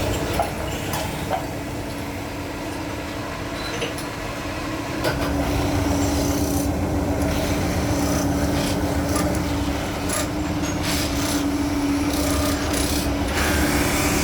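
A machine running with a steady hum that grows stronger about five seconds in, under continuous rubbing and scraping with scattered clicks, as of a tool working a piece on the machine.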